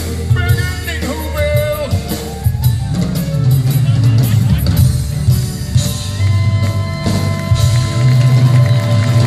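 Live band music over a concert sound system: drum kit, bass and keyboards, with voices singing in the first two seconds, then an instrumental passage of held keyboard chords over a steady beat.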